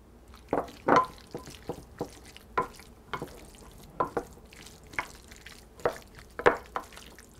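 A wooden spoon stirring gravy into ground lamb and diced vegetables in a glass baking dish, with short irregular knocks of the spoon against the glass, about two a second.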